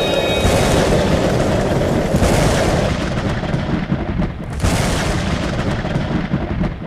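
Loud storm noise: strong wind and heavy rain with a deep, buffeting rumble that swells in gusts several times.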